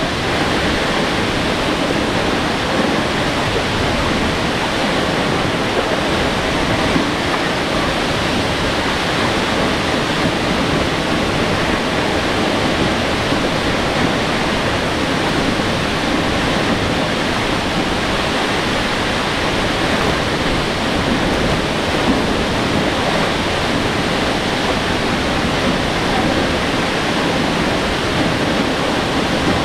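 Aw-asen Falls, a tall waterfall, with its water falling and splashing: a loud, steady rush of water that does not let up.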